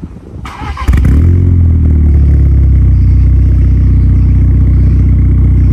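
VW Golf R Mk6's turbocharged 2.0-litre four-cylinder engine starting from behind its exhaust: a brief crank, the engine catching about a second in with a rev flare that falls away, then a steady fast idle.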